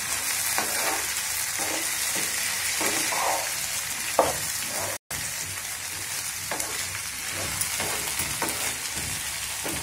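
Stuffed small brinjals and sliced onions sizzling in oil in a nonstick pan while a wooden spatula stirs them, with repeated scrapes of the spatula against the pan over the steady hiss. The sound cuts out for an instant about halfway.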